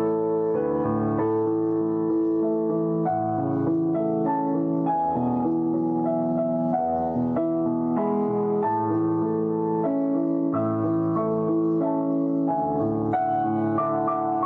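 Background piano music: slow held notes and chords.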